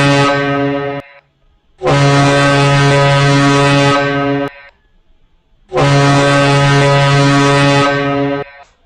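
Morse code for the letter O, three long dashes sounded on a low buzzing tone. The first dash ends about a second in; two more follow, each nearly three seconds long, with about a second of silence between them.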